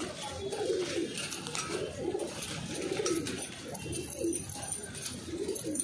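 Several domestic pigeons cooing, low calls following one after another and overlapping.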